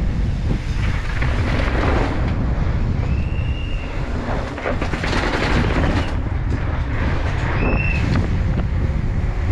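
Wind buffeting the microphone of a mountain bike's onboard camera at riding speed, over the low rumble of tyres on tarmac. Two short high-pitched squeals cut through, about three seconds in and again just before eight seconds.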